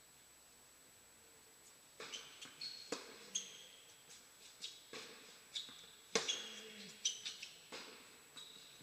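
Tennis shoes squeaking on an indoor hard court, mixed with sharp knocks of ball and racket that ring in the hall. They start after about two seconds of near silence and come irregularly through the rest.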